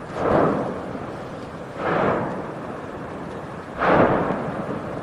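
Erupting volcanic vent throwing out bursts of lava: three explosive blasts about two seconds apart, each a sudden rush of noise that dies away over about a second.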